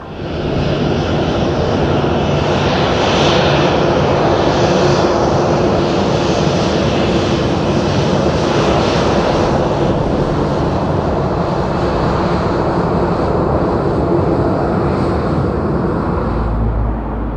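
Boeing 737-800's CFM56-7 jet engines running loudly and steadily, easing a little near the end.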